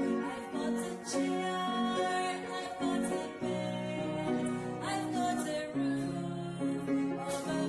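Upright piano playing a tune, with notes changing about every half second to a second over held low chords.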